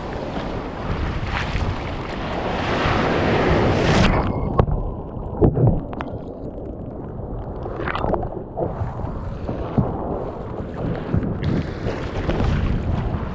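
Ocean surf and wind rushing over the microphone as a kayak is paddled out through breaking waves, with water sloshing against the hull and paddle strokes splashing. About four seconds in the hiss cuts away suddenly, leaving duller water sloshes and scattered splashes and knocks.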